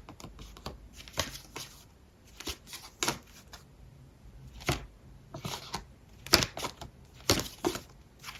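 Tarot cards being handled and laid down on a table: irregular light taps and flicks, a dozen or so, the loudest about six and seven seconds in.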